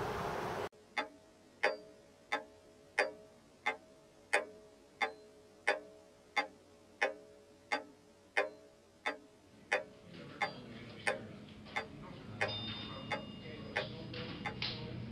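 A clock ticking steadily, about three ticks every two seconds, each tick followed by a short ringing tone. From about ten seconds in, a low hum and faint higher tones build up beneath the ticking.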